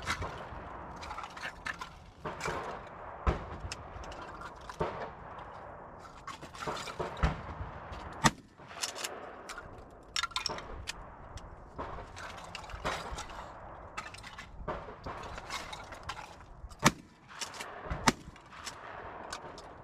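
Pump-action shotgun shots fired several seconds apart, the loudest about 8 seconds in and near 17 seconds in, with smaller knocks and clicks between them.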